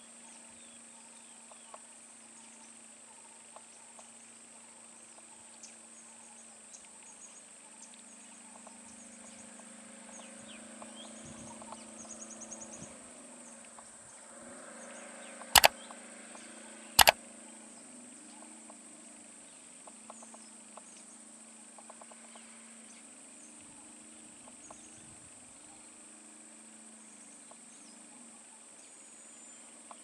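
Two sharp mouse-click sound effects about a second and a half apart, from an on-screen subscribe-button animation, over faint outdoor ambience: a steady high hiss, a low wavering hum and occasional bird chirps.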